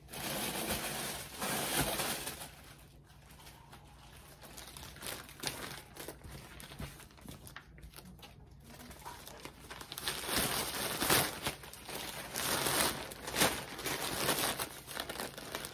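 Plastic shipping mailer bags rustling and crinkling as they are handled, folded and packed, in irregular bursts, louder in the first couple of seconds and again through the last third.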